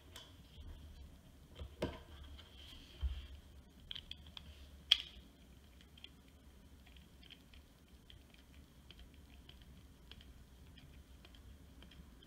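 Light clicks and taps of small plastic and metal RC parts being handled, with one sharper click about five seconds in. Then a nut driver turns the wheel nut on a 1/24-scale RC crawler wheel, giving faint, quick ticks.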